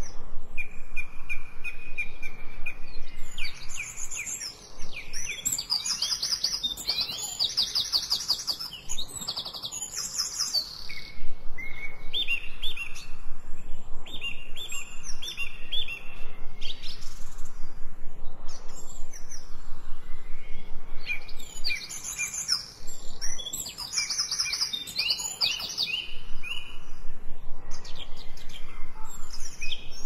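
Several songbirds singing, a busy mix of short repeated whistled notes and fast high trills.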